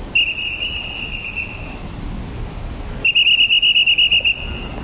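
Traffic marshal's whistle signalling traffic: one steady high blast of nearly two seconds, then, about a second later, a second blast with a fast trill lasting over a second. Low traffic rumble underneath.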